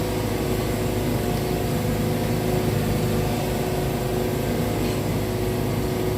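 Wood-Mizer portable sawmill running steadily, a constant engine hum with several held tones over it.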